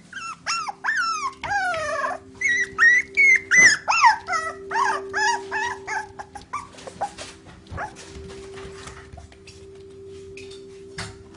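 Toy poodle puppy, about three months old, whining and yelping in a quick run of high cries that slide down in pitch, during roughly the first seven seconds; after that come fainter scuffling clicks. A steady low hum runs underneath.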